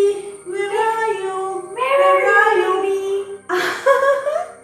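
A voice singing a short children's tune in several phrases of held, gliding notes.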